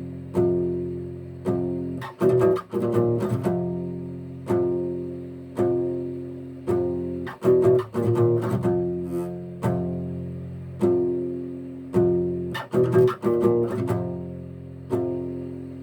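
Old, warped acoustic guitar playing dark, metal-style music: low chords struck about once a second and left to ring and die away, with quick runs of picked notes about two, seven and a half and thirteen seconds in.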